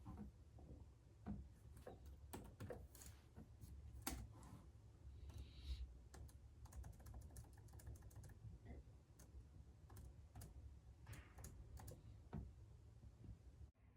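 Faint, irregular clicks and taps of handwork at a desk, pen and paper cards being handled and written on, over a low steady hum. It cuts off abruptly just before the end.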